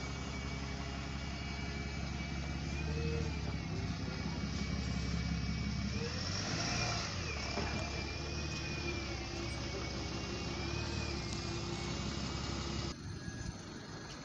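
Double-decker bus engine running as the bus pulls away and drives close past, with a high whine that wavers in pitch; it grows loudest midway and the sound drops off abruptly near the end.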